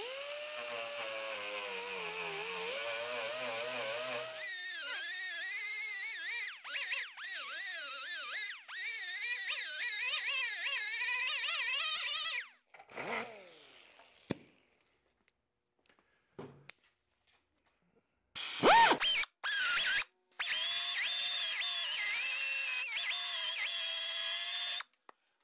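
Pneumatic right-angle die grinder with an 80-grit Roloc disc grinding old paint and body filler off a truck hood. Its whine sags and wavers as the disc bites, for about twelve seconds, then winds down. Later an air belt file sander is triggered in two short, loud bursts that rise in pitch, then runs steadily on the hood until just before the end.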